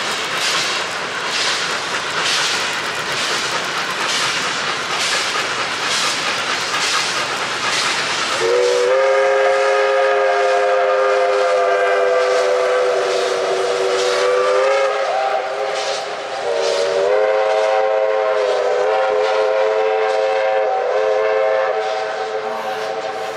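Steam locomotive working a train, its exhaust beating regularly at a little over one chuff a second; about eight seconds in its multi-note steam whistle sounds one long blast of about six seconds, then a second long blast after a short break, the chuffing carrying on underneath.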